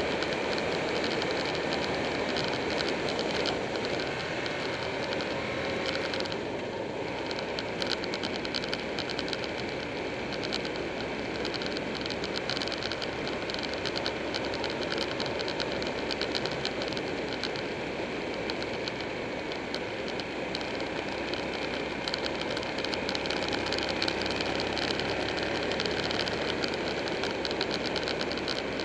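Buell 1125R motorcycle riding at speed, heard through a bike-mounted camera: a steady rush of wind and road noise over the engine, with a constant fine crackle or rattle.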